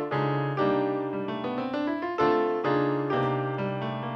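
Piano playing the introduction to a song, a series of full chords struck about every half second.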